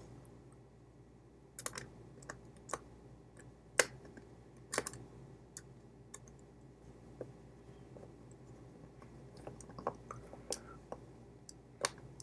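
Light, irregular clicks and taps of a small screwdriver against the plastic parts of an opened Logitech M305 wireless mouse as a screw is driven into the scroll-wheel section.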